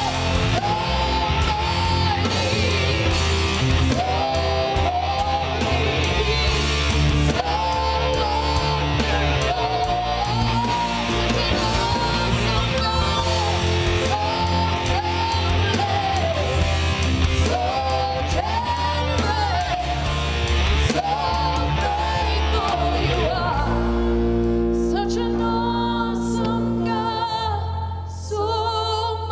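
A worship song: singing over a full band with drums and a strong bass line. About five seconds from the end the drums fall away, leaving held chords, and the bass then drops out.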